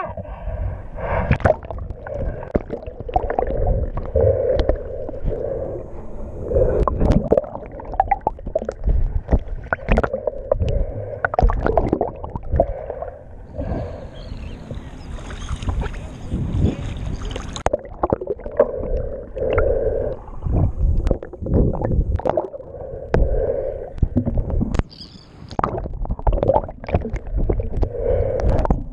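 Water sloshing and gurgling around a GoPro camera at the waterline, in irregular muffled surges as the camera dips in and out of the water, with a brighter, hissier stretch about halfway through.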